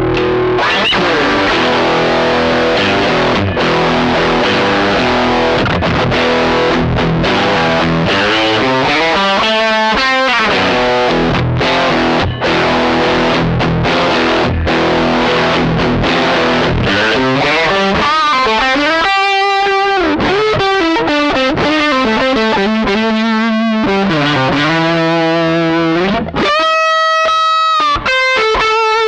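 Electric guitar played through a budget pedalboard chain of fuzz, overdrive, distortion, delay and reverb pedals, with a heavily distorted tone. Thick sustained chords give way about halfway through to single-note lead lines with string bends and vibrato, ending on a long held note.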